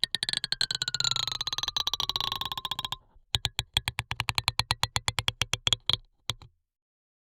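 Rapid mechanical clicking picked up through a contact microphone, about nine clicks a second, in two runs broken by a short pause about three seconds in; a falling ringing tone sounds under the first run, and a couple of stray clicks follow the second.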